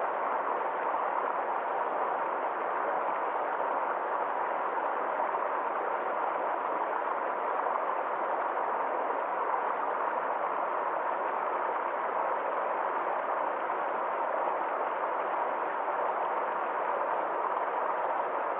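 Small forest stream flowing steadily over rocks, an even rush of water with no changes.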